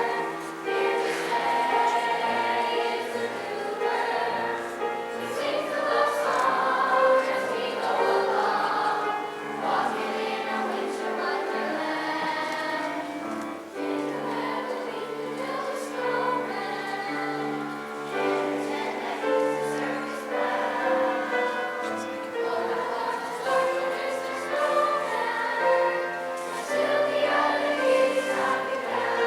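School choir singing in several parts with accompaniment, the sound full and continuous.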